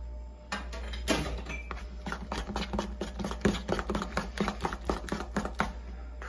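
A metal spoon beating soft, sticky yeast dough in a stainless-steel bowl: rapid, irregular clicks and scrapes of spoon on bowl that stop shortly before the end.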